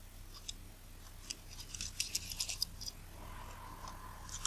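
Faint, small metallic clicks and ticks of a JIS #00 screwdriver working the tiny screws out of a lens's front ring, with a quick run of clicks about two seconds in.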